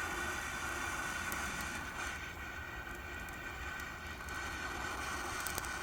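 Steady rushing hiss of a butane mini blowtorch lighter's jet flame, locked on and firing into twigs, with a few faint crackles from the kindling catching.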